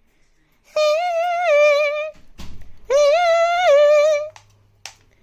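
A woman humming a high sing-song tune in two drawn-out phrases, with a short low thump between them.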